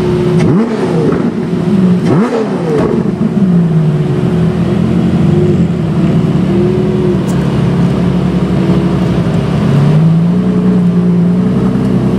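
Ferrari LaFerrari Aperta's V12 engine idling, with two quick rev blips about half a second and two seconds in, then a gently rising and falling idle that lifts again near the end.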